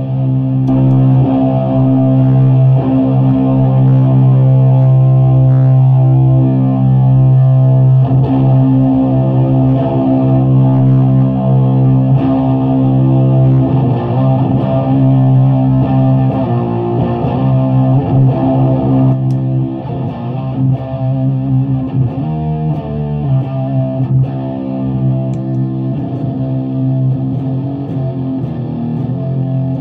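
Electric guitar played through fuzz pedals into a 50-watt Bridge City Sound Morrison amp and 6x12 Celestion V70 cabinet: a loud, heavily fuzzed, sustained droning chord. Notes shift and move over the held drone in the middle, and it falls somewhat in level about two-thirds of the way through.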